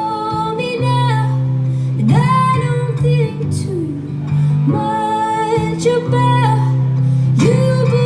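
A woman singing long held notes over an acoustic guitar, played live. Three times her voice slides up into a sustained note.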